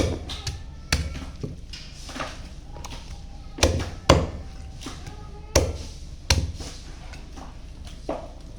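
A heavy knife chopping through chicken onto a chopping block: about nine sharp chops at an uneven pace, each with a deep thud.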